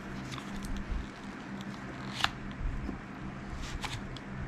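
Small clicks and light scraping from a Zebco 33 spincast reel being handled as its front cover is twisted off, with one sharper click about two seconds in. A faint steady hum runs underneath.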